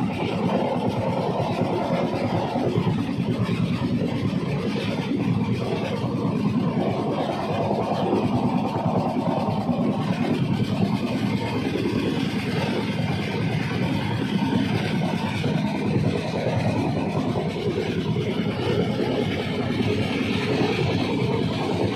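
Moving train heard from an open carriage door: a steady noise of the wheels running on the rails.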